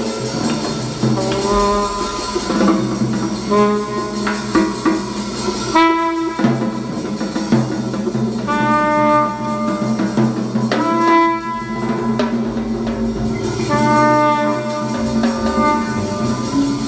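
Trumpet playing a jazz line in short phrases of held notes, over a live drum kit and band backing.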